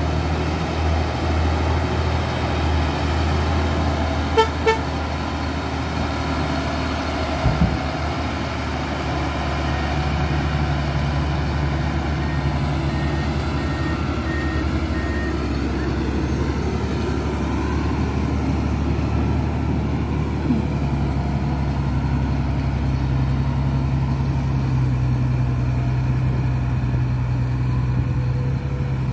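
SHACMAN tipper truck's diesel engine running steadily as the truck drives over a dirt track, its pitch shifting a few times. Two short horn toots come about four seconds in, and a single thump follows a few seconds later.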